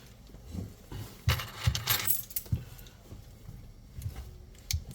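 Small metal objects being handled: a cluster of clinks and rattles about one to two and a half seconds in, then a few sharp clicks near the end.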